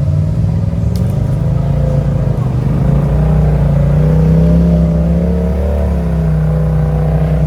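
Can-Am Outlander ATV's V-twin engine running under throttle while riding, its pitch climbing about three seconds in, easing slightly near six seconds, then holding steady.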